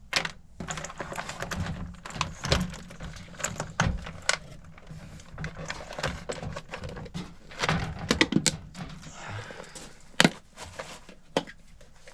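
Irregular clicks, taps and knocks of hand tools and metal parts being handled, one sharper knock about ten seconds in, over a low steady hum.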